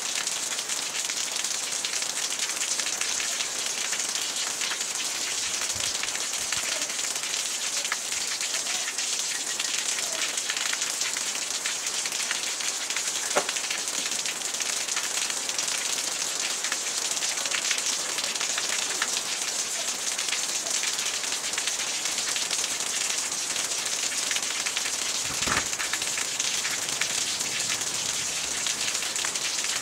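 Steady high hiss like rain on a surface, with two faint knocks, one about halfway through and one near the end.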